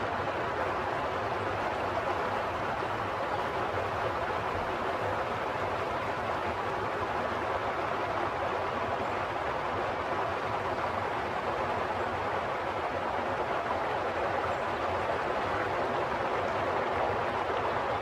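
Running water: a steady, even rush with no separate splashes or drips.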